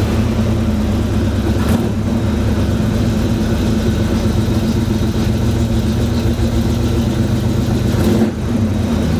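1965 GMC 2500 pickup's engine running steadily just after a start, idling in neutral, after sitting for a few days. Its loudness dips briefly about eight seconds in.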